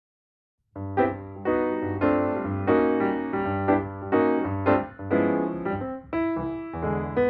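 Background instrumental music, coming in just under a second in with a run of pitched notes over a bass line.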